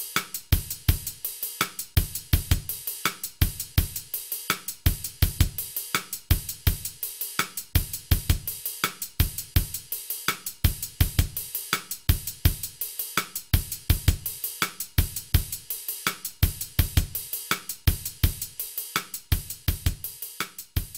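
Background music with a steady drum-kit beat: kick drum, snare, hi-hat and cymbals.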